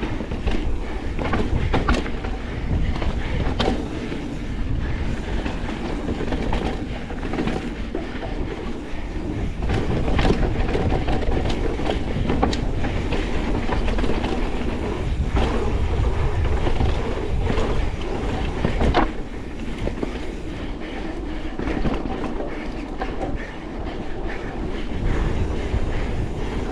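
2025 Pivot Switchblade full-suspension mountain bike descending a rooty trail: tyres rolling over dirt and roots with a steady rattle and frequent clattering knocks as the wheels hit bumps.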